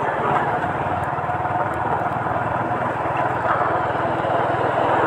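Motorcycle engine running steadily while riding, with air rushing over the microphone.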